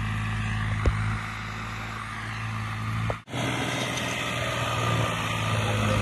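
Tractor's diesel engine running steadily as it pulls a trailer piled high with straw bales, with a single short knock about a second in. The sound drops out for an instant about three seconds in, then the engine comes back a little louder toward the end.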